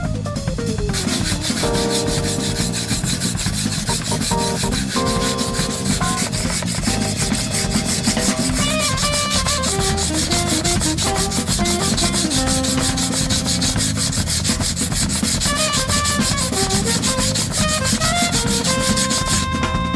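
Gyuto kitchen knife blade being ground back and forth on a whetstone to thin it, a steady rubbing grind that starts about a second in and stops just before the end, over background music with a melody and drums.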